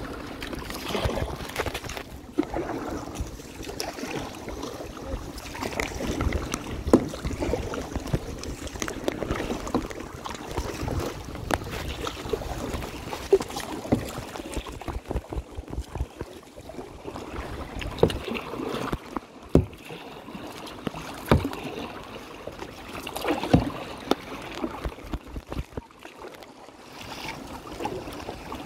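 Kayak paddle strokes splashing and dripping in calm sea water, with sharper splashes every few seconds over a steady lapping, and some wind rumbling on the microphone.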